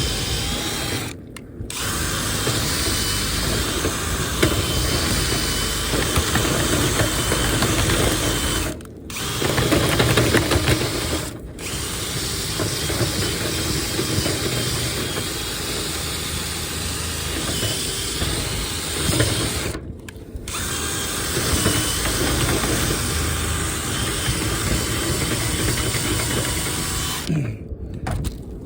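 Power drill spinning a rotary dryer-vent cleaning brush inside the vent duct. It runs steadily, stops briefly four times, and is shut off near the end, as the brush snags and gets stuck in the duct.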